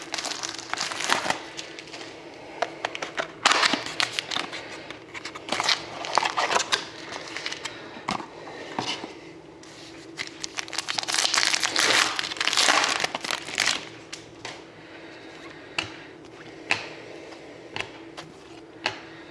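Trading-card pack wrappers crinkling and tearing as packs are opened, with the cards being handled and flicked through. The crinkling comes in two heavier bursts, a few seconds in and around the middle, then gives way to scattered light clicks near the end.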